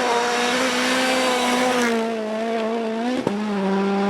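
Race car engine sound: a steady high-revving drone held at a nearly constant pitch, with a brief click about three seconds in.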